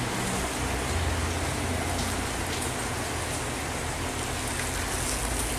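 Risotto with freshly added broth sizzling steadily in a pan while a spatula stirs the rice.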